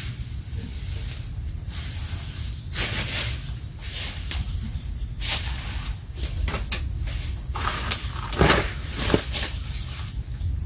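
Footsteps crunching in dry leaf litter and leaves rustling as a person pushes through undergrowth. The rustles come in irregular bursts and are loudest near the end.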